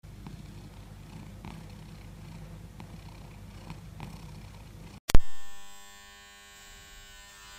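A cat purring, a steady low rumble, for about five seconds. It then breaks off, and a loud struck note rings out and fades over about a second, leaving a faint held tone.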